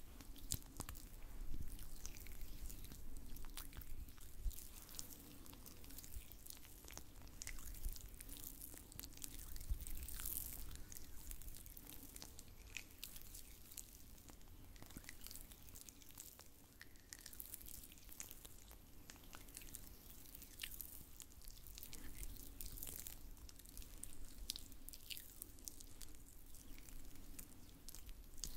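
Oiled hands rubbing and sliding together close to the microphone, making irregular wet, sticky clicks and squishes.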